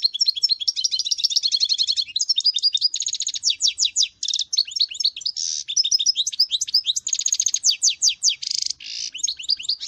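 Goldfinch singing a long, continuous twittering song: rapid high chirps and fast trills mixed with short buzzy notes.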